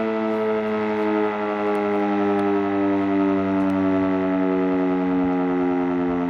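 Civil defence siren sounding a steady, chord-like wail during a siren test, its pitch sinking very slightly.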